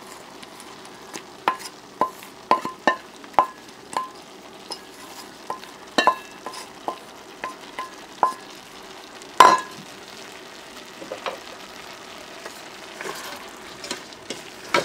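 Wooden spoon stirring soaked rice into split-pea dal in an aluminium rice-cooker pot: a run of sharp knocks of the spoon on the metal that ring briefly, the loudest about nine seconds in, over a soft rustle of wet rice being turned.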